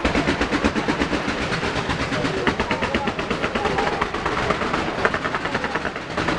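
Aerial fireworks barrage: fanned multi-shot volleys firing in an unbroken rapid string of pops and bangs, many a second.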